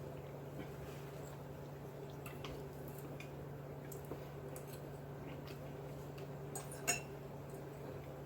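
Steady low hum with faint scattered small clicks and handling noises, and one sharper click about seven seconds in.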